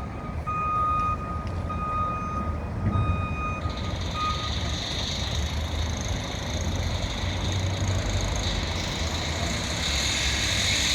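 A construction vehicle's backup alarm beeping about once a second over a steady low engine rumble; the beeping stops about four seconds in, and a steady hiss sets in and runs on.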